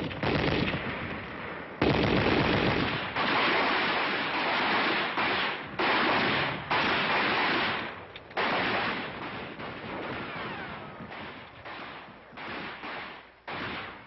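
Bursts of machine-gun fire, one after another, each starting suddenly and dying away within a second or so. The longest and loudest bursts come in the first few seconds.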